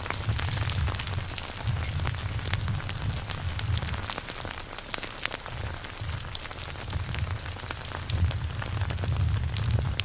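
Dense crackling and popping over a low rumble that swells and fades every second or two.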